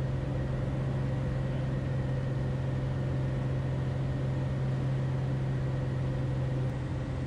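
Light single-engine airplane's piston engine and propeller running steadily, a constant low drone heard from inside the cockpit, dipping slightly near the end.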